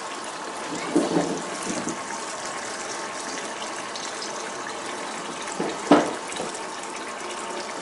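Cold tap water pouring steadily into a saucepan of water holding a boiled egg, splashing as it cools the egg. The splashing swells briefly about a second in and again about six seconds in.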